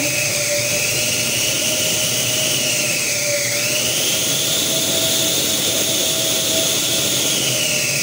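Osterizer blender's electric motor running unloaded with no jar on the base, a steady high whine over a lower hum. It runs continuously on its repaired on/off switch instead of cutting in and out. The whine dips in pitch a little past three seconds in, then climbs higher and holds.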